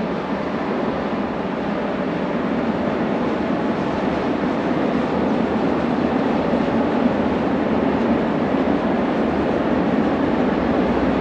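A real train rolling along on rails, a steady rumble that grows gradually louder.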